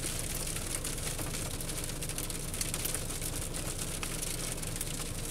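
Car engine idling steadily, a low even hum, with a few faint ticks over it.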